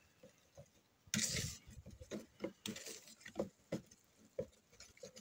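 Wooden spoon stirring thick tomato sauce in a plastic mixing bowl. There is a louder scrape about a second in, then soft, irregular stirring strokes, two or three a second.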